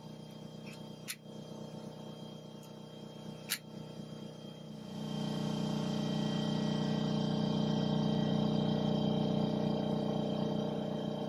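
Air compressor motor starting about five seconds in and running steadily with a low, even hum. Before it, two sharp clicks from handling tools and parts.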